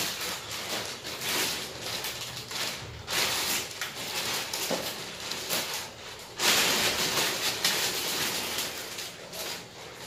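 Large plastic packing sheet rustling and crinkling as it is handled and pulled over a polystyrene-packed air-conditioner unit, louder from about six and a half seconds in.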